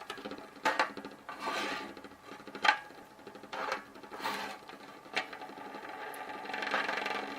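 Four magnets rattling and sizzling between two plexiglass sheets set on a djembe drum head, which amplifies them. Irregular buzzing rattles broken by a few sharp clicks, settling into a steadier buzz near the end.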